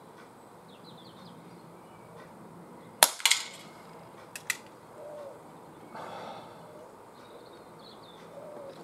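A single shot from an ASG Schofield 6-inch CO2 pellet revolver about three seconds in: a sharp crack, then a quick metallic rattle as the pellet strikes the top tin can. About a second later come two light knocks as the can falls off the stack.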